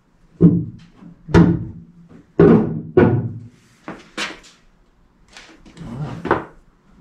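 Hood of a 2011 Chevrolet Equinox being pressed down and knocked by hand while its fit is checked: about six hollow sheet-metal thunks, roughly a second apart, each ringing briefly.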